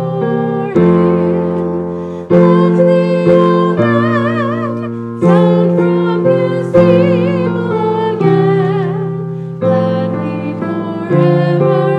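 Slow piano music: held chords struck every couple of seconds and left to fade, with a wavering melody line with vibrato above them through the middle.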